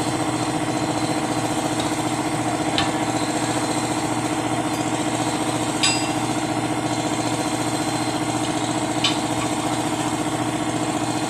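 An engine running steadily, with three sharp metallic clinks a few seconds apart from a steel tire lever being worked into a truck tire's bead.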